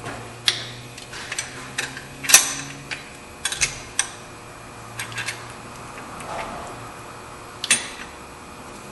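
Irregular metallic clicks and clinks as a wrench and a new serpentine belt are worked onto the accessory-drive pulleys and tensioner of the engine. The sharpest clink comes about two and a half seconds in, and another comes near the end.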